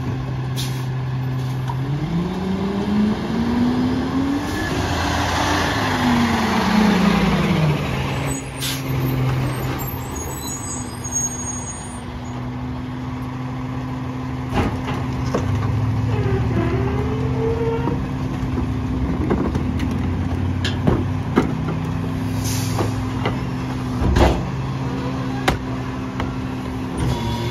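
Diesel engine of a Freightliner McNeilus rear-loader garbage truck revving up as the truck pulls ahead, then winding back down, with a hiss of air brakes as it stops. It then idles steadily, with a few sharp knocks in the second half.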